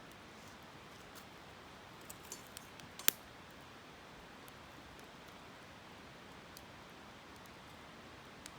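Steady rush of a flowing river with a wood campfire crackling over it: a few small pops about two seconds in, then one sharp snap about three seconds in.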